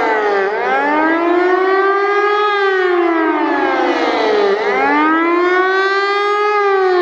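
Hörmann pneumatic high-performance civil-defence siren sounding the 'warning of the population' signal: a loud, continuous wail whose pitch rises and falls about every four seconds. It is the rising and falling warning tone that tells people to go indoors and close windows and doors.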